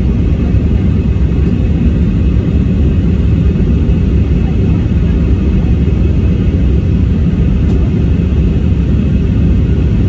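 Steady low rumble of an airliner cabin in flight, jet engines and airflow heard from a window seat of an easyJet Airbus A320-family jet.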